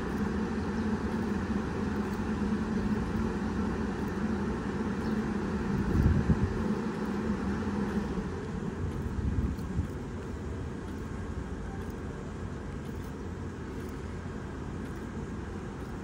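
A stationary JR 381-series electric train idles at the platform, its on-board equipment giving a steady hum and whir. A low hum in it stops about eight seconds in, and there are two brief low rumbles near six and near nine seconds.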